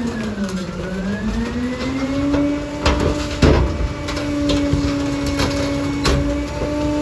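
Garbage truck's engine and hydraulics running under load, the hum dropping in pitch during the first second and climbing back to a steady note. Bulky items being tipped into the hopper and crushed give sharp cracks and bangs about three seconds in, again half a second later, and about six seconds in.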